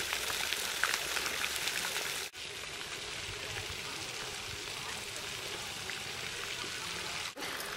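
Park fountain's jets splashing into a stone basin: a steady hiss of falling water. It briefly cuts out about two seconds in and again near the end.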